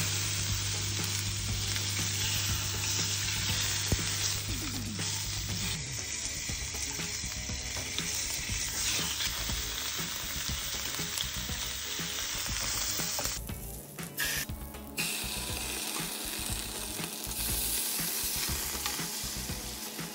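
Beef steak frying in a hot pan: a steady sizzle, with a low hum under it for the first few seconds. About two-thirds of the way in the sound changes as a cream-and-tomato sauce simmers in the pan and is stirred with a spatula.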